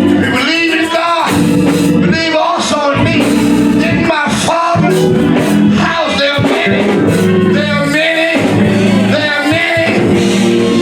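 Church song: a singing voice with instrumental accompaniment that includes guitar.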